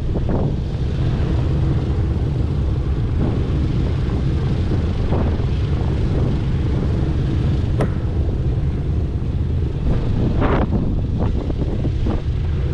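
A B-17 Flying Fortress's Wright R-1820 Cyclone radial engines running steadily in a loud, even drone, with several short gusts of wind buffeting the microphone.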